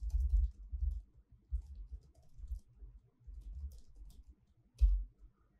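Computer keyboard typing: a run of irregular keystroke clicks and soft low thuds as a terminal command is entered, with one louder thud near the end.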